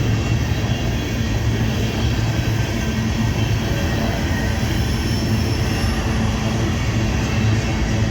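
Empty BNSF freight train rolling past: a steady rumble of wheels on the rails.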